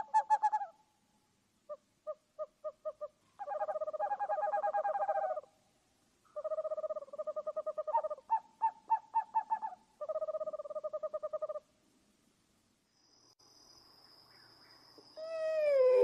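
Owl calling: quick runs of pulsed, trilling hoots lasting one to two seconds each, then near the end one loud hoot that slides down in pitch.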